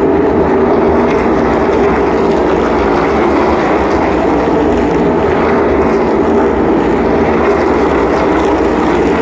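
Field of NASCAR Cup Series stock cars running at speed around the oval, their V8 engines blending into one loud, steady drone.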